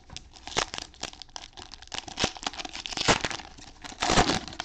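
A Panini Mosaic football cello pack's cellophane wrapper being torn open and crinkled by gloved hands. It comes as a run of quick crackles, loudest near the end.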